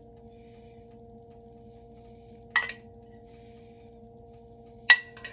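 A metal spoon clinking twice against cookware with a short ringing tone, about two and a half seconds in and again near the end, as sauce is spooned from a small saucepan. A steady low electrical hum runs underneath.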